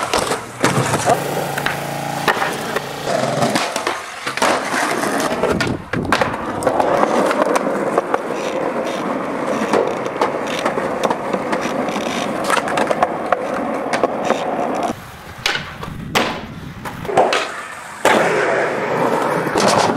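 Skateboard wheels rolling on concrete, with sharp clacks of the board popping and landing now and then.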